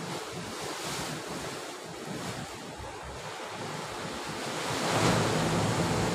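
Sea waves breaking and washing against shoreline rocks, with wind buffeting the microphone. The surf swells louder about five seconds in.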